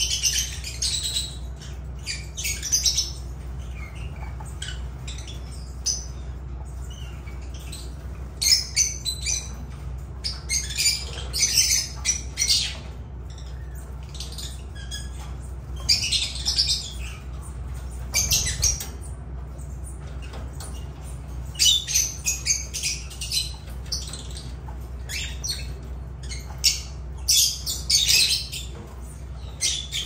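Agapornis lovebirds chirping and squawking in clusters of short, shrill calls with pauses of a second or two between them, over a steady low hum.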